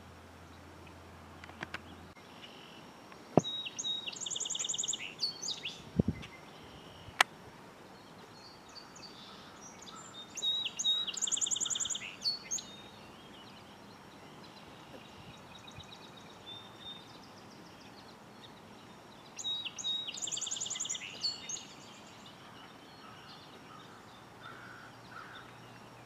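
Song sparrow singing three songs several seconds apart, each about two seconds of quick high notes running into trills. A few sharp clicks and a low thump fall between the first two songs.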